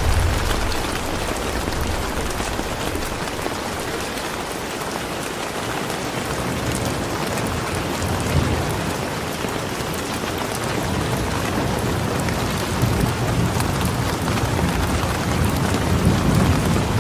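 Steady rain falling, with low rolls of thunder: one dying away at the start and another rumbling through the second half.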